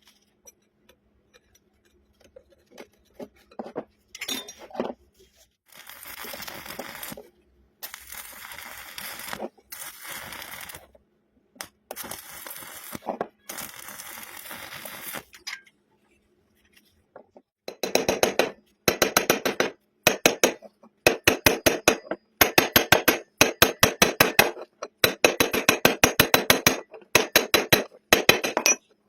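Metalworking on steel: several stretches of hissing a second or two long, then rapid metallic tapping in bursts of about a second each.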